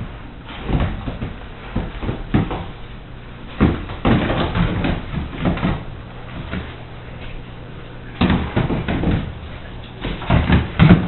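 Irregular soft thumps and scuffs of footsteps on a tile floor, from a miniature pinscher walking in winter boots and a person walking by, coming in clusters with short pauses between.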